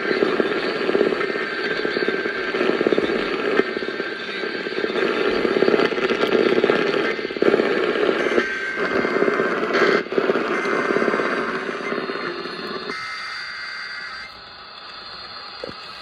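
Weather-alert clock radio tuned to AM 1160, its speaker giving out a dense, hissy, crackling broadcast signal with no clear words. A little before the end the lower part drops away and the sound grows quieter.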